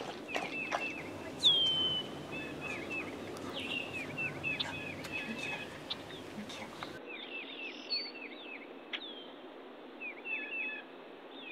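Wild birds chirping in woodland, a steady run of short repeated chirps with a few sharp clicks near the start; about seven seconds in the sound turns thinner and narrower.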